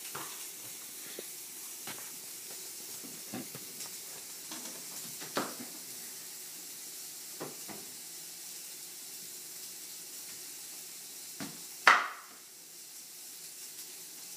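Steak and potatoes sizzling steadily in hot pans, with scattered light knocks and one loud clack near the end.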